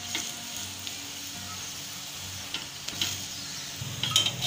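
Oiled paratha sizzling on a cast-iron tawa while a metal spatula presses it down, with a few light scrapes and taps of the spatula, sharper near the end.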